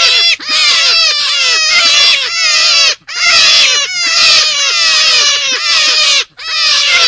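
Forest rabbit calls: rapid, overlapping high-pitched cries, each falling in pitch, running as a dense chorus with three short breaks, just after the start, about three seconds in, and near the end.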